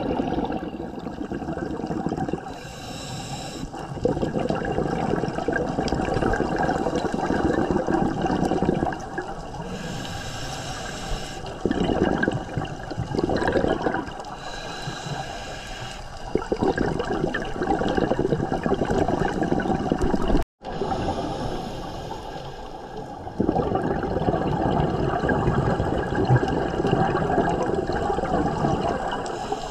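Scuba diver breathing through a regulator underwater: several seconds of rumbling exhaled bubbles alternate several times with shorter, quieter hissing inhalations. The sound drops out for a split second about twenty seconds in.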